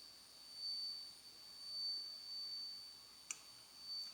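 A faint, steady high-pitched whine with one short sharp click about three seconds in.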